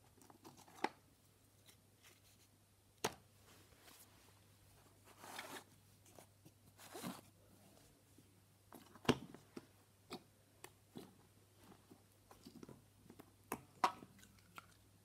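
Small plastic slime tubs and the slime in them being handled: faint scattered clicks and taps, with two short rubbing, squishing noises near the middle. A faint steady hum runs underneath.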